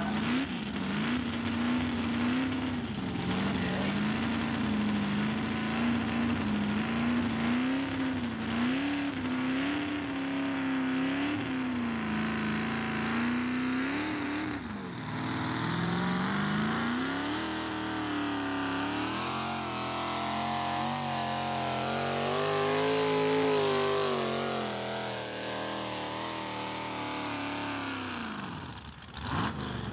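Pulling pickup truck's engine running hard at high revs through open exhaust stacks while dragging a weight-transfer sled; the pitch wavers up and down as the truck fights for traction. The note climbs to its loudest a little past the middle, then eases and drops off sharply near the end as the pull finishes.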